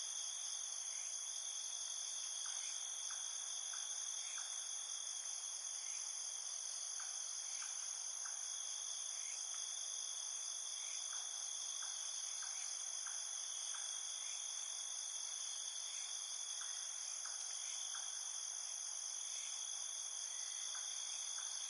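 Steady, high-pitched chorus of insects, several shrill tones held constant without a break, with faint short chirps scattered through it.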